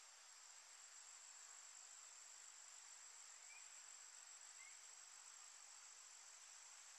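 Faint, steady high-pitched insect drone over low hiss, with two faint short rising chirps in the middle.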